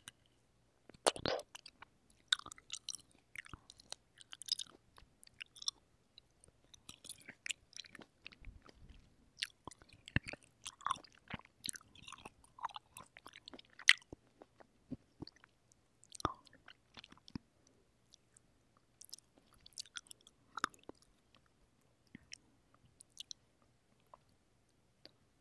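Close-miked chewing of fresh, juicy cherries: wet mouth sounds and soft clicks, busiest in the first two-thirds and thinning out near the end.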